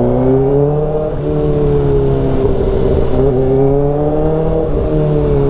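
Kawasaki Ninja ZX-4RR's inline-four engine running under way, its pitch climbing and dropping several times with changes of throttle and gear.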